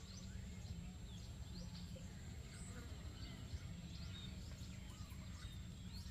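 Small birds chirping over and over with short, rising calls, above a steady low rumble.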